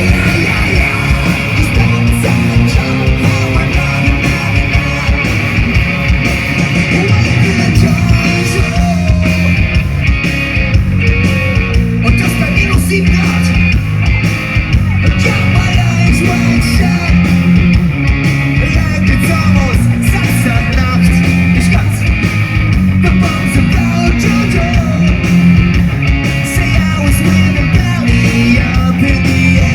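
Punk rock band playing live: loud distorted electric guitars, bass and a driving drum beat, with sung vocals.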